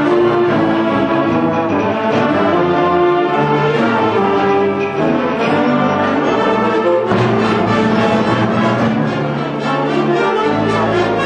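Orchestral music, loud and steady, with many held notes sounding together as chords that change every second or so.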